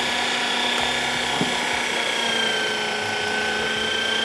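Electric meat grinder switching on and running steadily as it regrinds a beef-mince kofta mixture: a constant motor whine whose pitch dips slightly about halfway through.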